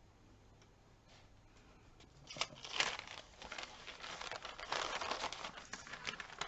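A sheet of paper rustling and crinkling as it is handled and laid down. It starts about two seconds in, after a quiet start, and goes on in irregular bursts.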